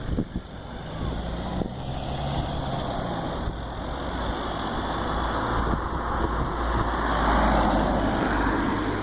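A motor vehicle's engine rumbling, with the noise swelling to its loudest about three-quarters of the way through and then easing, like traffic passing.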